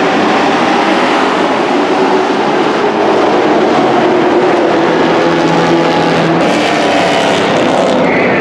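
A pack of dirt-track racing pickup trucks running hard around the oval, their engines blending into one loud, steady drone.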